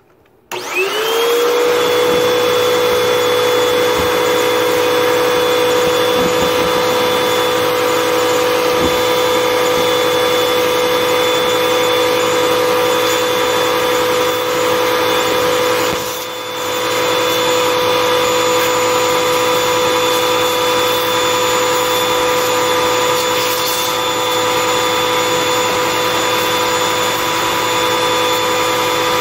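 Vacuum cleaner switched on about half a second in, its motor whine rising quickly to a steady pitch, then running steadily while it vacuums dust from refrigerator coils. The sound dips briefly once about halfway through.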